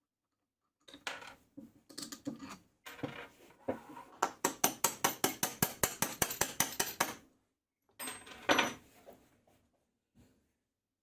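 A hammer tapping the end of a steel bolt to drive it out of a glued stack of plywood discs: a fast, even run of light metallic strikes, about five a second, lasting some three seconds. Before it come a few scattered knocks of handling, and a couple of wooden knocks follow near the end.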